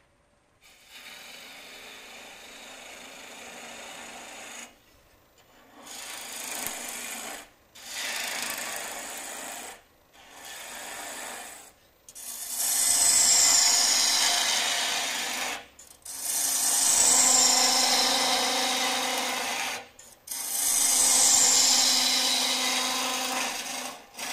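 Gouge cutting a spinning mesquite goblet stem on a wood lathe, in about seven passes of one to four seconds each with short pauses between. The last three passes are the loudest, each with a high whistle that slides down. The timber is chipping away at every cut because it has a split and a soft pith running through it.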